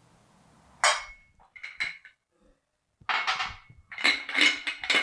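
Kitchen storage containers and their lids being picked up, opened and set down on a counter: a sharp clack with a brief ring about a second in, a couple of small clinks, then a run of clattering knocks and clinks from about three seconds in.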